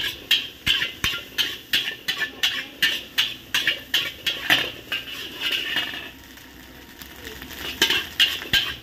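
Metal spatula clanging and scraping against a large wok as fried rice is stir-fried, about three strokes a second. The strokes stop for a second or two near the end, then start again.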